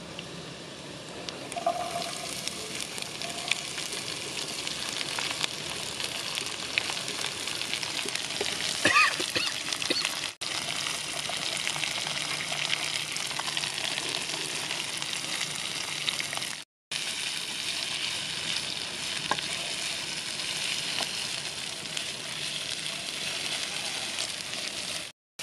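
Diced cauliflower, carrots and peas sizzling in hot oil in a nonstick wok over a tempering of mustard seeds and curry leaves, stirred with a silicone spatula. The sound is a steady sizzle with fine crackle and cuts out briefly twice.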